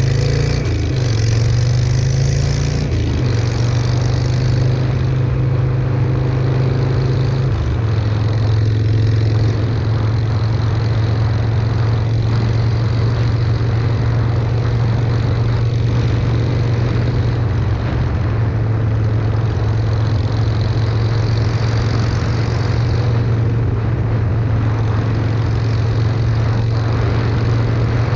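A 2004 Harley-Davidson Sportster XL883's air-cooled V-twin runs loud through shotgun exhaust pipes with baffle inserts. The engine note shifts pitch a few times in the first several seconds, then holds steady.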